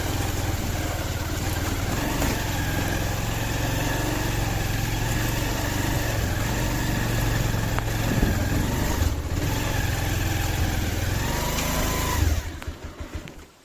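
Motorcycle engine running steadily under way, then stopping about twelve seconds in.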